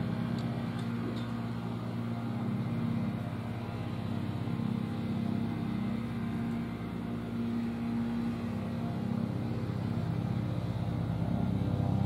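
Federal Signal 508 electromechanical tornado siren running a quiet test: its rotor turns at low speed and gives a steady low growl instead of a full wail while the head rotates. It grows a little louder near the end.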